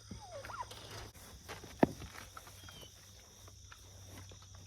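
Insects chirping steadily, with a short gliding bird call near the start and a single sharp click or knock just under two seconds in.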